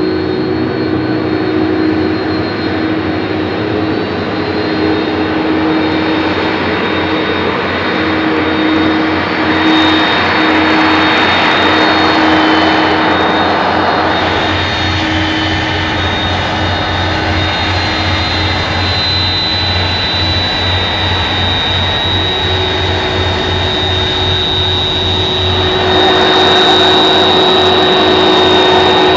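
Airbus A300-600ST Beluga's turbofan engines running at low taxi power: a steady jet whine over a lower hum. The sound gets louder and fuller about 26 seconds in.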